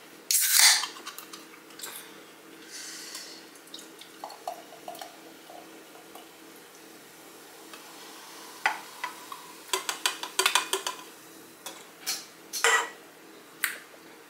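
A can of ginger ale snapped open about half a second in, with a brief loud hiss of escaping gas. Later the ginger ale is poured into a glass, with a run of sharp clicks and clinks in the last few seconds.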